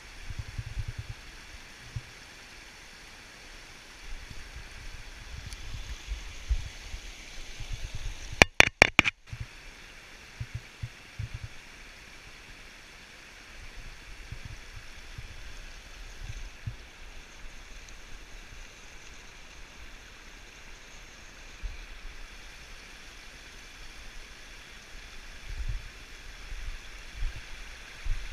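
Steady rush of river water flowing over and through metal walkway grates. About eight and a half seconds in comes a quick run of four or five loud, sharp knocks.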